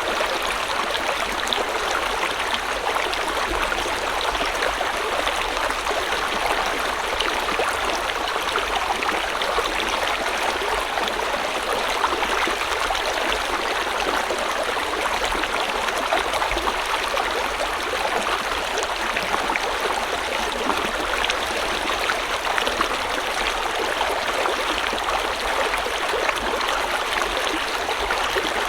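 River water flowing steadily over stones, a continuous rushing and burbling with fine splashing detail.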